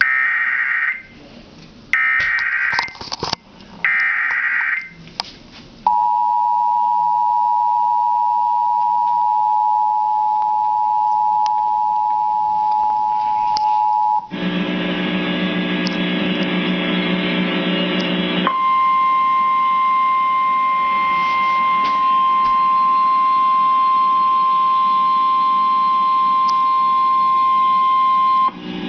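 Emergency Alert System tones. Three short screeching bursts of SAME digital header data come first, then the two-tone attention signal held for about eight seconds. After a few seconds of harsh buzz comes the single steady 1050 Hz NOAA Weather Radio warning tone for about ten seconds, announcing a severe thunderstorm warning.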